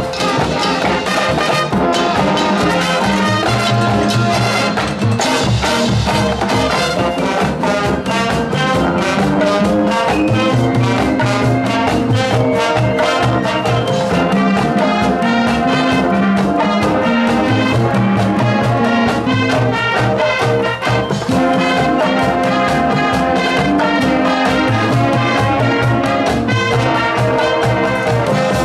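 Marching band playing: brass carrying the tune over steady drum-line and front-ensemble percussion.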